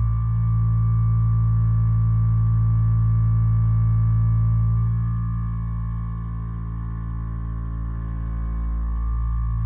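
Hyperice Vyper 2 vibrating foam roller running, its vibration motor giving a loud, steady deep hum with overtones while a person's calves rest on it. The hum gets a little quieter for a few seconds past the middle, then comes back up.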